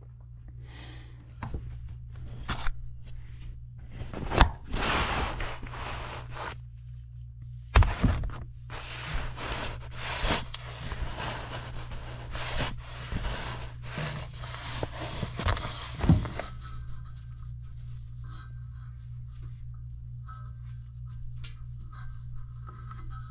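Hands handling the furnace's blower compartment and blower wheel: irregular scraping and rubbing with a few sharp knocks, over a steady low hum. The handling noise stops about two-thirds of the way through.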